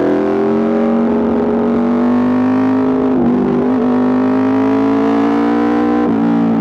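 Aprilia RSV4 RR's V4 engine running hard through an Austin Racing exhaust, a steady high engine note that climbs slowly, dipping briefly about three seconds in and again near the end.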